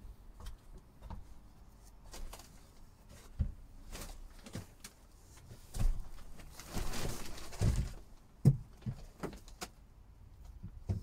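Scattered knocks and bumps with a longer scraping rustle about seven seconds in, and a sharp knock soon after, as a person clambers up a wooden ladder and crawls onto the platform above a motorhome's cab.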